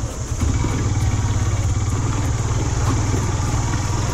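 Motorcycle engine running at low speed on a rough, rocky dirt track. It dips briefly just after the start, then carries on steadily.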